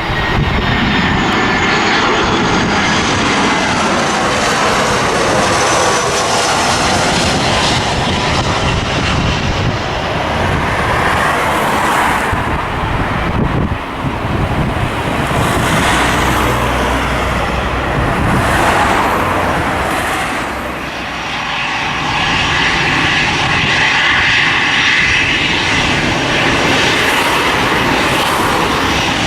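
Airliner engines running loud and close, a dense rushing noise with a high whine that falls in pitch over the first several seconds as the aircraft passes.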